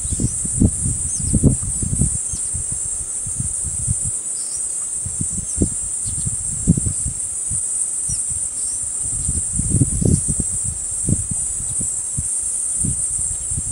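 Insect chorus: a steady, high-pitched buzzing drone. Underneath it come irregular low bumps and rumbles, and a few faint short chirps.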